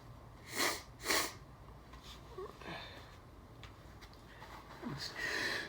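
Two quick, sharp sniffs through the nose about half a second apart, then faint breaths and, over the last second, a building in-breath in the wind-up to a sneeze, from nasal irritation caused by Chhinkni sneezing powder.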